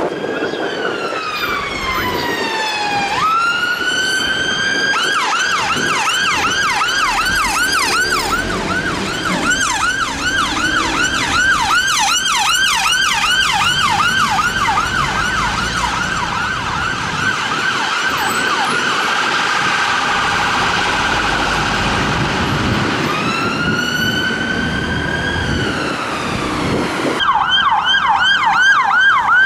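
Two-tone UK ambulance siren on a Volkswagen Tiguan rapid response car: a slow wail falling and rising, then a fast yelp of about three sweeps a second, then a slow wail again, over traffic noise. Near the end it cuts to a police van's siren on fast yelp.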